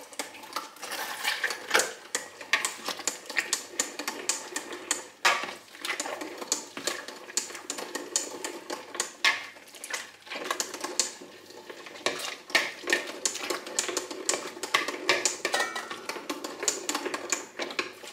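Tomato strainer being worked: a plastic plunger presses roasted tomatoes down into the hopper, with rapid, irregular clicking and knocking throughout.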